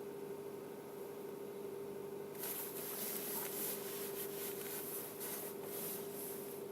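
Kia Ceed 2 engine idling on a cold start, a steady hum. From about two and a half seconds in, scratchy rustling comes and goes close to the microphone.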